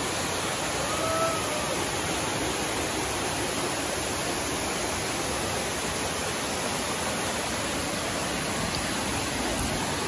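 Steady rush of a waterfall: stream water pouring over rock ledges into a pool.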